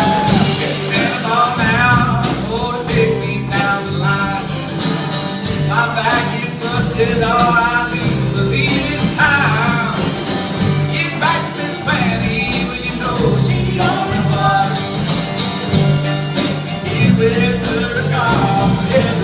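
Live band playing a country-style song with singing over guitar and bass.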